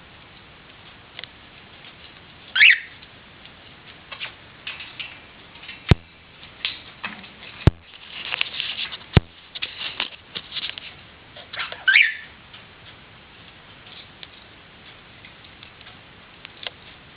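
Pet parrot making soft chattering and clicking noises, with two short rising squeaks, one a few seconds in and one near the middle, and a few sharp clicks in between.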